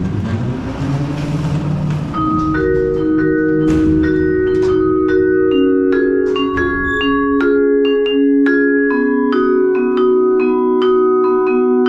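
Background music: a melody of ringing mallet-percussion notes, entering about two seconds in after a short noisy swell.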